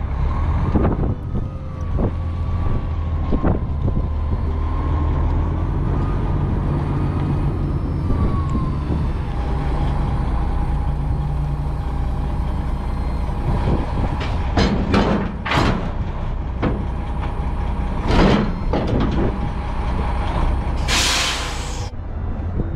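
Semi tractor's diesel engine running as the truck pulls up alongside and stops. There are a few knocks midway, and near the end a loud hiss of air lasting about a second as the air parking brake is set.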